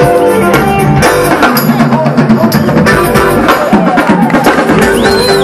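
Live band playing loud dance music on drums and percussion with guitar over a steady beat.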